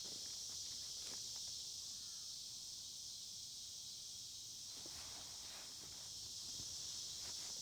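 Steady high-pitched insect chorus, like crickets at night, with a few faint rustles about a second in, around five seconds and near the end.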